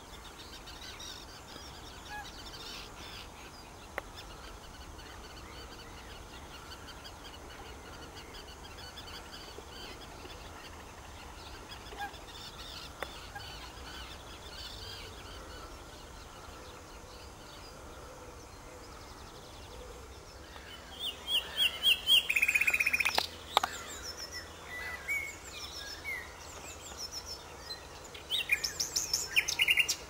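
Faint distant birdsong over a low steady rumble. About two-thirds of the way in, a nightingale starts singing loudly in short phrases of rapid repeated notes and trills, with pauses between phrases.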